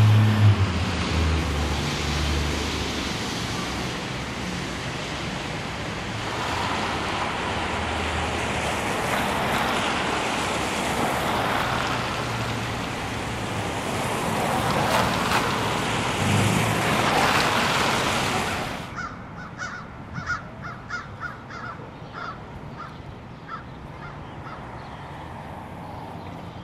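Street traffic on a wet, slushy road: a steady hiss of tyres through slush as vehicles, an MBTA trolley bus among them, pass, with a low engine hum near the start. About two-thirds of the way through it drops to quieter street sound with a run of short, sharp repeated sounds.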